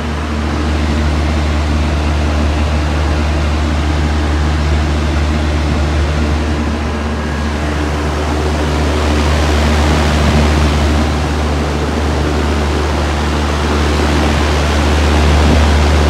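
2012 Trane Odyssey 10-ton commercial air conditioner running: the steady rush of air from its condenser fan over a low, steady hum.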